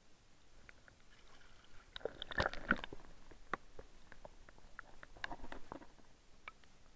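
Muffled knocks and sloshing from a camera in a waterproof housing being handled and plunged underwater, with scattered sharp clicks and a louder jumble of knocks about two to three seconds in.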